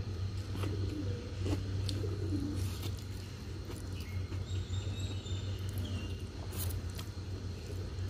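Noodles being slurped and chewed, with birds chirping and cooing in the background over a steady low hum.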